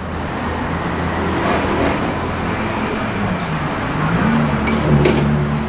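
Road traffic noise with a motor vehicle engine running close by, its pitch wavering over the last few seconds. Two short sharp clicks come near the end.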